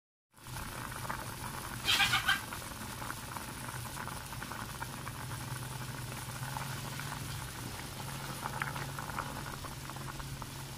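Pot of chicken soup with potatoes at a rolling boil, a steady bubbling with small pops, over a low hum. About two seconds in, a brief louder sound cuts across it.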